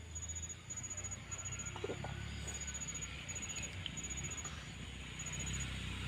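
Quiet eating sounds: faint chewing and mouth clicks over a low steady hum.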